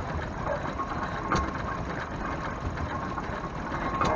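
Vintage stationary engine running with a steady mechanical clatter and low thudding, with sharp knocks about a second and a half in and again near the end.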